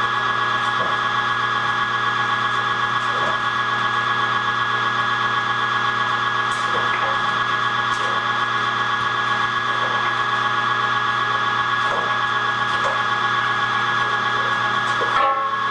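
Cabela's 1 hp electric meat grinder running steadily under load, a constant motor hum with a higher whine, as meat is pushed through the fine die for the second grind.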